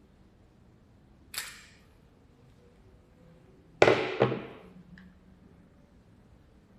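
Sharp clacks of a pipe-cutting tool's parts being handled while a replacement blade is refitted: one short clack about a second and a half in, then two louder snaps close together a few seconds in.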